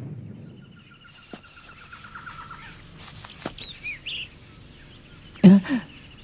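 Night-forest ambience in an anime soundtrack: a high, rapidly pulsing trilling call for about two seconds, then a few short chirps. About five and a half seconds in comes a brief thump.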